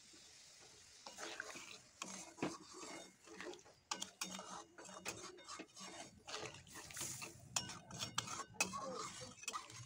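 A spatula stirring a thin, watery potato curry in a metal kadai, scraping and tapping against the pan in faint, irregular clicks that start about a second in.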